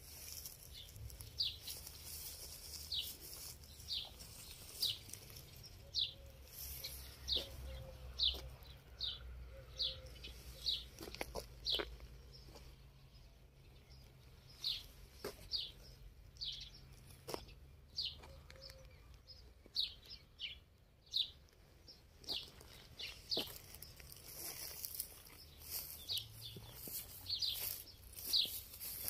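Small birds chirping over and over: short high chirps, each falling in pitch, about one or two a second, with a few sharp clicks and a low rumble underneath.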